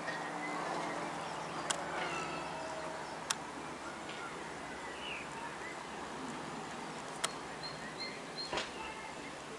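Small birds chirping, with the low steady drone of a distant light propeller aircraft fading out in the first few seconds. Four sharp clicks stand out.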